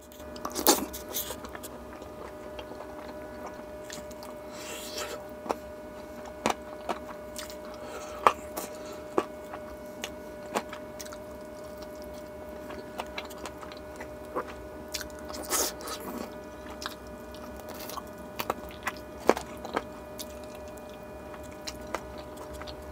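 Close-miked eating: biting into and chewing chicken on the bone and naan, with wet mouth smacks and scattered sharp clicks, a few louder ones about a second in and around two-thirds through. A steady hum runs underneath.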